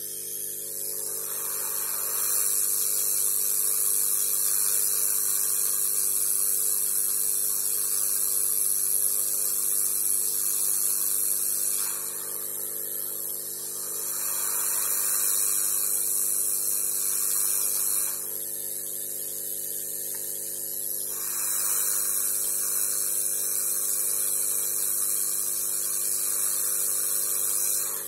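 Hot-air rework gun blowing: a steady hiss of air over a motor hum, louder in three long stretches, while it heats small capacitors off an old laptop motherboard to desolder them.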